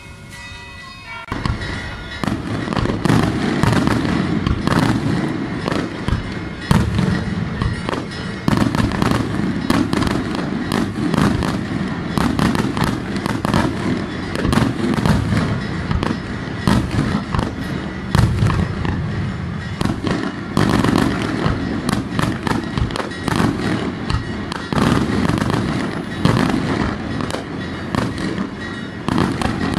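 Daytime fireworks: a dense, continuous barrage of firecracker cracks and shell bangs with a rolling low rumble, starting suddenly about a second in.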